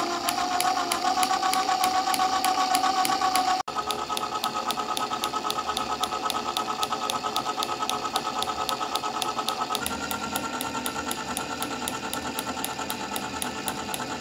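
Small DC motor whirring steadily as it drives a toy syringe-piston engine through plastic gears and a crank, with a fast, even clicking from the moving parts. The sound cuts out for an instant about four seconds in.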